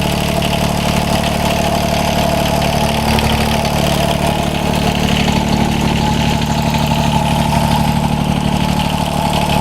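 John Deere 330 garden tractor's three-cylinder, liquid-cooled Yanmar diesel engine idling steadily, being run for a little while on fresh oil just after an oil change.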